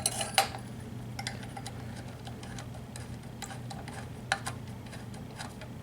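Bolt driver turning a heatsink mounting bolt on a CPU: a series of small, irregular metal clicks and ticks, the strongest in the first half second. A steady low hum runs underneath.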